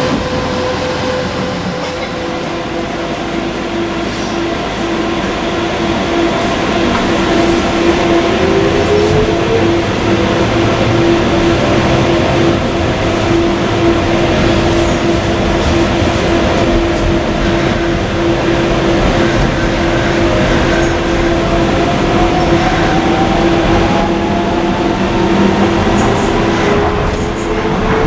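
Docklands Light Railway train running, with the steady rumble of wheels on track and an electric motor whine that rises slowly in pitch over the second half as the train picks up speed.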